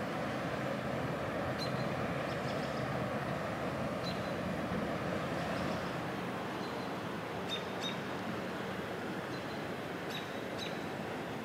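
Steady, even noise with a few short high chirps, some in quick pairs.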